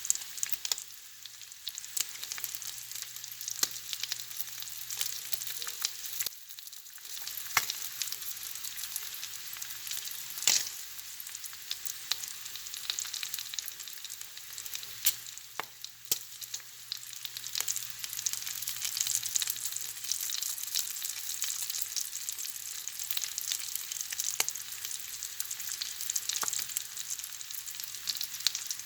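Bacon sizzling as it fries: a steady high hiss with frequent sharp pops and crackles of spitting fat.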